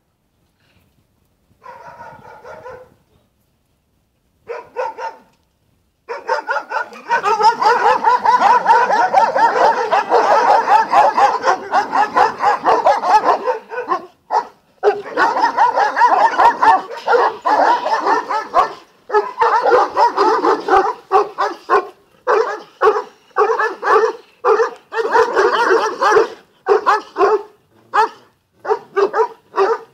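Romanian Bucovina shepherd dogs barking. There are two short bursts in the first few seconds, then from about six seconds in a rapid, nearly unbroken run of barks. Toward the end it breaks into separate barks, two or three a second.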